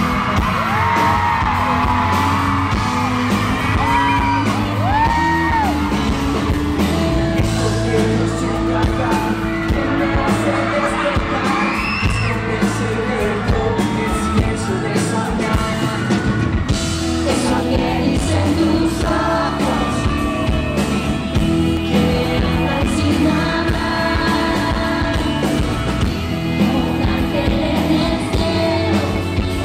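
A live pop-rock band plays in a large hall, with singing and the audience yelling and whooping over the music.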